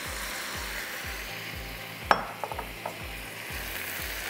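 Basmati rice and mince simmering with a steady sizzle in a non-stick wok on a gas burner, with a spoon knocking sharply against the pan about two seconds in, followed by a few lighter taps as the rice is stirred.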